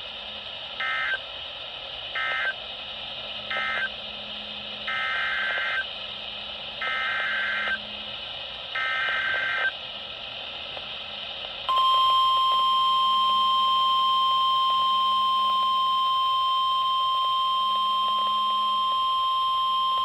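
NOAA Weather Radio Emergency Alert System tones played through a Midland weather radio's speaker: three short bursts of SAME data code marking the end of the previous message, then three longer bursts of the SAME header for the next warning. About twelve seconds in, the steady 1050 Hz warning alert tone starts and holds to the end, over a constant radio hiss.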